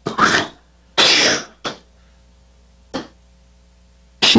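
Two short breathy bursts from a man's voice about a second apart, not words, then a faint click near three seconds over a quiet room hum.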